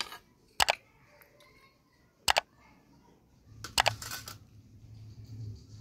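Sharp mouse-click sound effects from a subscribe-button animation, in quick double clicks about every one and a half seconds. A low hum comes in about three and a half seconds in.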